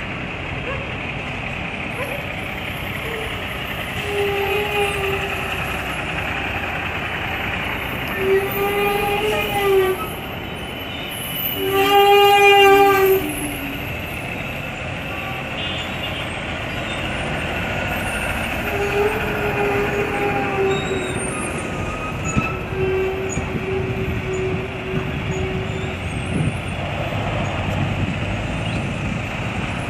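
Vehicle horns honking about five times over a steady rumble of road traffic and engines. The honks are short to long single-pitched blasts, and the loudest and longest comes near the middle.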